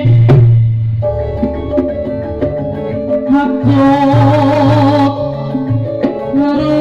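Live campursari music played on amplified instruments: held melody notes over a stepping bass line, with a sharp percussive hit about a third of a second in.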